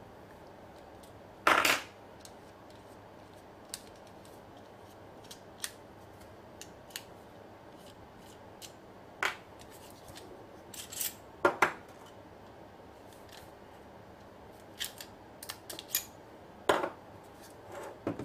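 Metal parts of a Walther P22 .22LR pistol clicking and clacking as it is handled and stripped, with a handful of sharp, louder clacks spread among light ticks.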